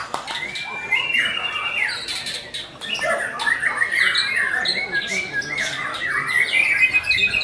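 White-rumped shama (murai batu) singing a continuous, varied song of short whistled phrases with quick rising and falling notes, in full song.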